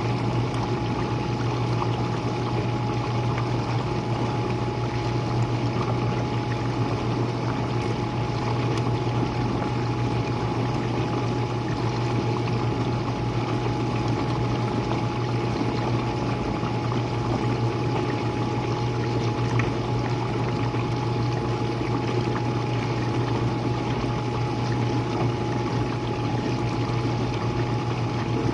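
Jenn-Air dishwasher running a wash cycle, heard from the bottom: a steady low hum from the wash pump with water spraying and splashing inside the tub, and a thin steady whine above the hum.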